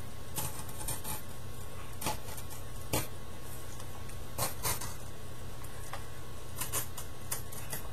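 X-Acto knife blade scratching and clicking on paper as a slash cut is traced into it: short, irregular scratches, about ten of them, over a steady low hum.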